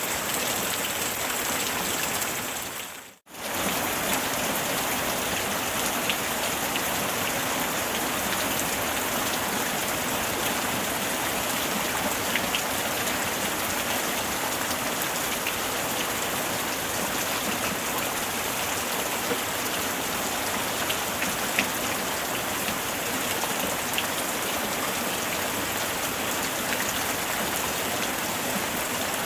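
Steady rain falling: a dense, even hiss with scattered ticks of single drops. About three seconds in, the sound dips to near silence for a moment and then comes straight back.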